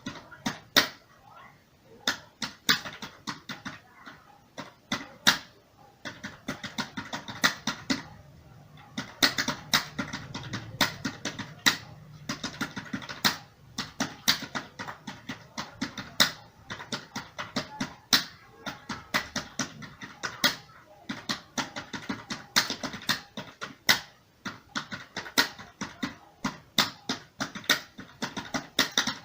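Computer keyboard being typed on at a brisk pace: runs of key clicks, several a second, broken by short pauses.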